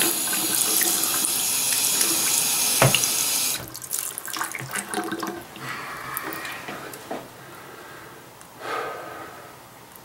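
Bathroom sink faucet running at full flow, then shut off suddenly about three and a half seconds in, leaving faint handling sounds. The handle is turned all the way, yet no hot water is coming through.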